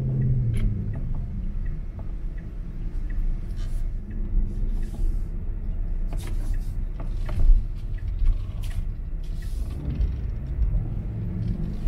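Low road and tyre rumble of a Tesla Model Y electric car driving slowly, heard from inside the cabin, with no engine note. A faint regular ticking about twice a second runs through the first few seconds.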